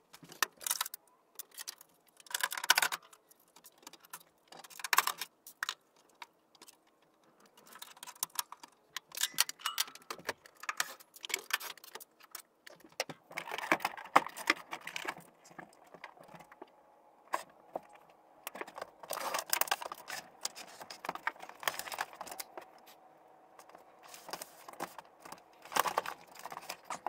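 Irregular clicks, clinks and rattles of an RV refrigerator's cover panel and trim being worked loose and lifted out by hand, in short clusters every second or two.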